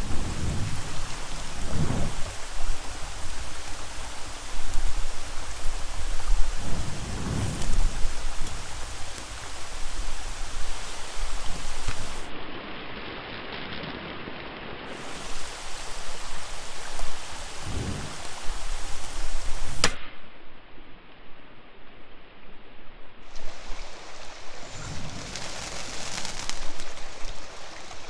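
Steady rain hiss with several short whooshes from a flaming fire sword swung through the air, some seconds apart.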